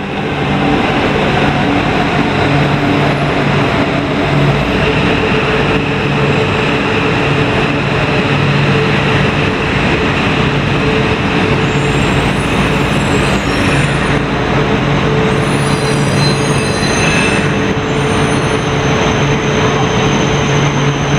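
Joetsu Shinkansen Max double-decker bullet train pulling into a station: loud, steady running noise with a low hum. High squeals come in from about twelve seconds in, and a thin high whine follows near the end.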